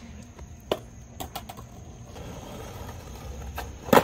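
Skateboard on asphalt: a few sharp clacks of the board against the street about a second in, then a low rumble of wheels rolling that builds, and a loud clack near the end as a skater lands on the board.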